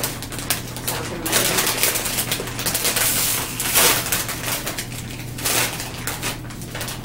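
Plastic chip bag (Ruffles sour cream and onion) crinkling loudly as it is pulled open and handled, a dense crackle that is loudest around the middle.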